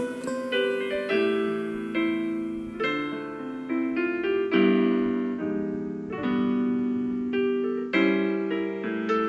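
Background music: piano chords struck about once a second, each ringing out and fading.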